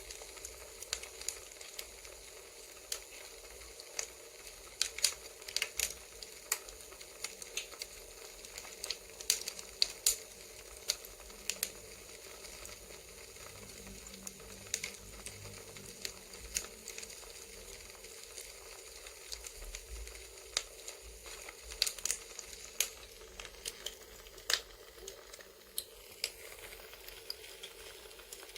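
Crackling campfire ambience: a steady hiss with irregular sharp pops and crackles of burning wood, some much louder than others.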